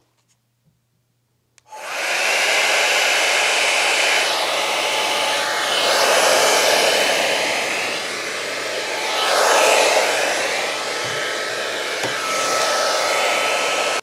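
T3 Micro AireBrush Duo hair dryer brush with its paddle-brush head, blowing steadily as it is pulled through long curly hair. It starts about two seconds in, and the rush of air swells and dips as the brush moves through the hair.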